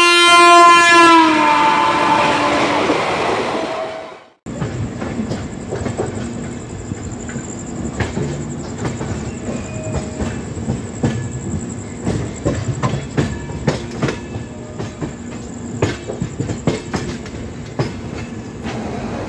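An Indian Railways electric locomotive's horn sounds loudly and drops in pitch as it passes, fading out after about four seconds. After a sudden cut come the sounds of riding aboard a passenger train as it rolls into the station: a steady running rumble with irregular clicks of the wheels over rail joints and points.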